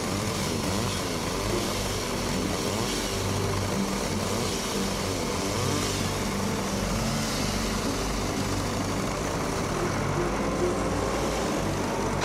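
Logging machinery running: chainsaw engines and a wheel loader's diesel engine, a steady engine din with revs rising and falling in the first couple of seconds.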